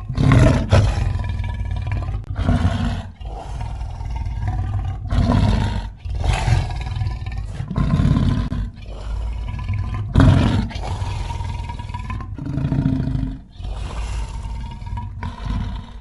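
A designed werelion creature voice: a run of about ten loud, deep, lion-like roars and snarls, each a second or two long with short breaks between them. The strongest come near the start and again about ten seconds in. It is a composite monster effect mixed from big-cat roars.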